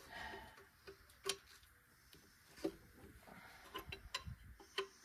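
Faint metallic clicks and taps of a hand wrench working the bolts on a Farmall Super M-TA's cast rear wheel hub. The clicks are sharp, come a few at a time and are irregularly spaced.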